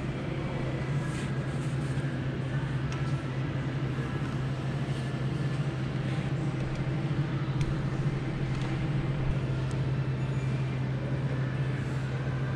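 Steady low hum and background noise of a large shop hall, with a few faint clicks and knocks.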